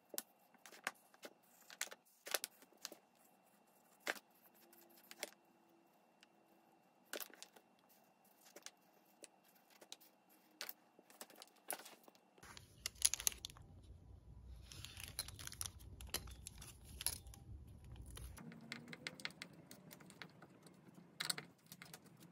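Faint scattered taps and clicks of a marker pen and small wooden board being handled on a plastic-covered table. About twelve seconds in, wind rumble on the microphone begins, with bursts of small clicks and rattles as a hanging sign's wire is fixed to a wooden garden gate.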